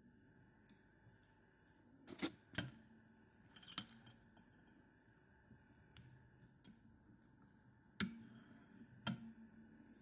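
Faint, scattered clicks and light taps, about seven over ten seconds, from a whip-finish tool and fingers working the tying thread as the finishing knot is tied at the fly-tying vise.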